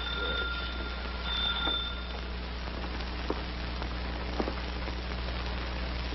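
Electric doorbell ringing with a steady high tone that stops about two seconds in, followed by a few faint clicks. A constant low hum and hiss of an old film soundtrack runs underneath.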